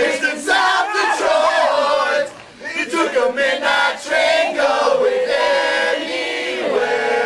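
A group of young men and women singing and chanting a song together, loud and lively.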